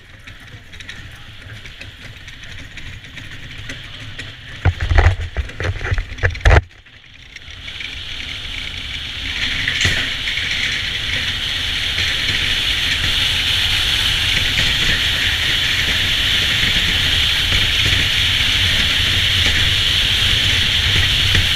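Bobsled running down an ice track: the runners' hiss and rumble on the ice build steadily from about seven seconds in as the sled gathers speed. A few loud thumps come a little before that.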